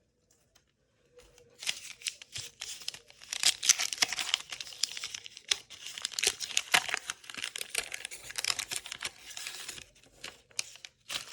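Wax-paper wrapper of a 1985 Topps baseball card pack crinkling and tearing as it is ripped open by hand. It starts about a second in and crackles densely before thinning to a few scattered crackles near the end.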